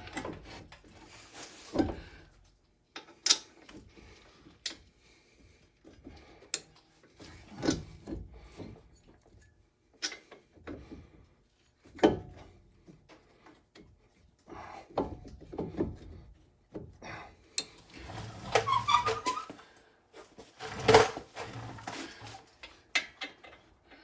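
Scattered metal clunks, clicks and scrapes of a brake caliper being fitted back over the rotor and its caliper bolts being handled and positioned, with quiet gaps between.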